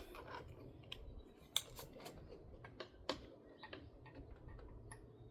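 Light, irregular clicks and taps from a cotter pin and screen-door hardware being worked by hand, as the pin is fitted into the door's fitting.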